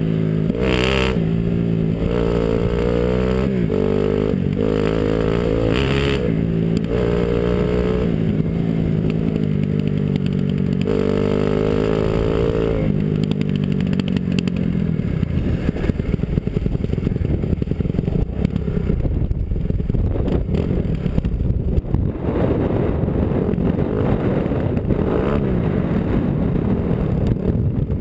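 Dirt bike engine revving up and down through the gears, its pitch climbing and dropping repeatedly. About halfway through the throttle eases off and the engine fades under a rough rush of wind and tyre noise as the bike rolls on gravel.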